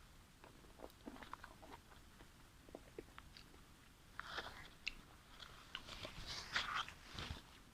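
Close-miked eating sounds: a person chewing and biting food, with scattered small mouth clicks and louder wet smacking bursts about four seconds in and again between six and seven seconds.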